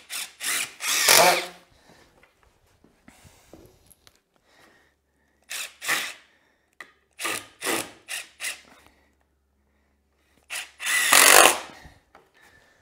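Cordless drill-driver driving wood screws through a timber cleat into pressure-treated boards. It runs in short bursts, with a longer run about a second in and the longest, loudest run near the end as a screw is driven home.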